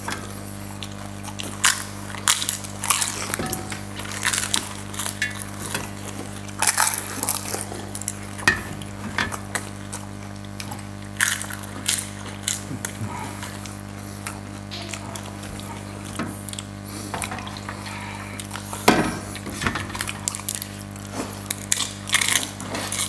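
Pani puri being eaten: crisp hollow puris cracking and crunching in the mouth, with irregular clinks of glass bowls and fingers against steel plates, over a steady low hum.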